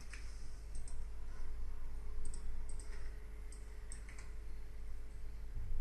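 About a half-dozen sharp computer mouse clicks, some in quick pairs, over a low steady hum.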